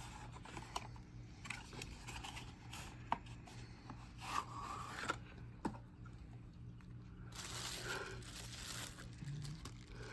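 Box packaging being opened and handled: faint scraping, rustling and tearing, with a few sharp clicks, over a steady low hum.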